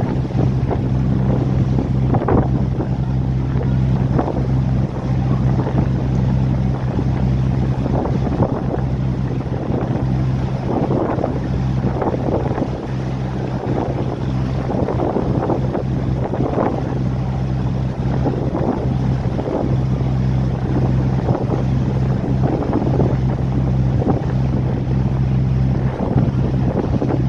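Boat engine running with a steady low drone, water splashing against the hull as the boat moves, and wind buffeting the microphone.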